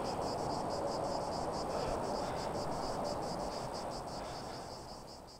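Insects chirping in a steady, even pulse of several chirps a second over a low rushing ambience, all fading out near the end.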